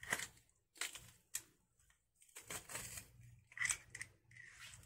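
Metal garlic press crushing garlic cloves, with crunching and clicking of the press in several short bursts.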